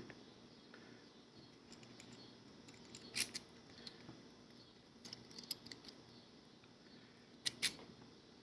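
Scattered small metallic clicks and taps from handling a Sparrows progressive practice lock, its key and tools, with a sharp pair of clicks near the end.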